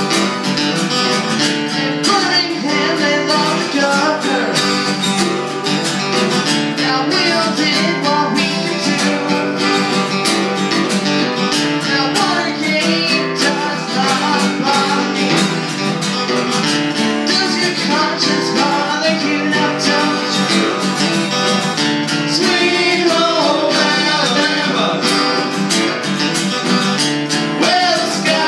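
Two acoustic guitars strummed together, with singing over them in several phrases.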